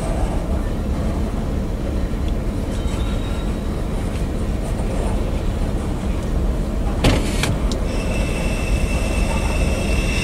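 Freight cars rolling past with a steady low rumble of wheels on rail. A single sharp clank comes about seven seconds in. Then a high, steady metallic squeal from the wheels lasts for the last two seconds or so.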